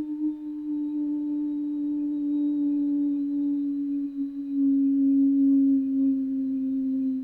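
Tornado warning siren holding one long wail that slides slowly down in pitch.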